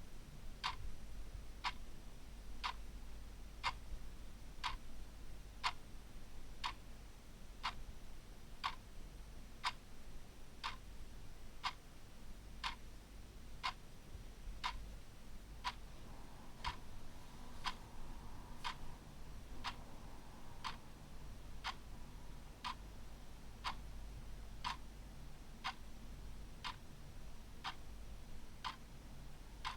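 Clock ticking steadily, one sharp tick a second, over a low steady hum.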